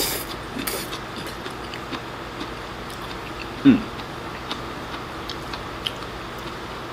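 Eating sounds: a mouthful of stir-fried pea shoots slurped in at the start, then chewing with scattered light clicks of chopsticks against a ceramic rice bowl. About halfway through comes a short low hum, the loudest sound here.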